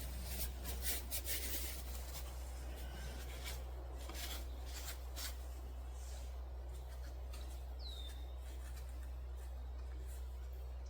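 Irregular rubbing and scraping strokes, thickest in the first half, over a steady low hum. A single short, falling chirp comes about eight seconds in.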